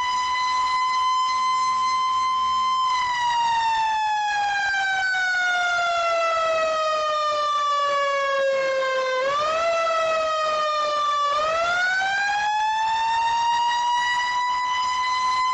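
Fire siren sounding a slow wail. The tone holds high, then slides down over about six seconds, jumps briefly up, sinks again, then climbs back up and holds high again near the end.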